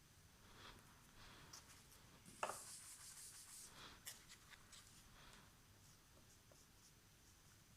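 Faint rubbing and rustling handling noises with a single light tap about two and a half seconds in and a few small clicks, then near silence.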